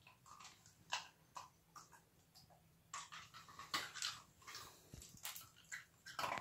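Irish Terrier puppy chewing on ice, crunching it in irregular short bursts that are busiest in the middle.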